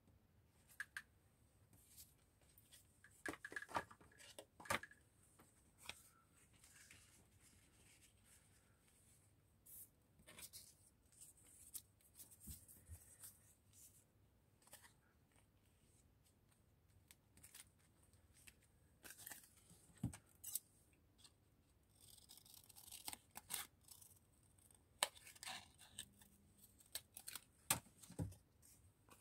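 Faint paper-crafting sounds: scattered rustles and small sharp snips of paper being cut and handled, with busier clusters about three to five seconds in and again near the end.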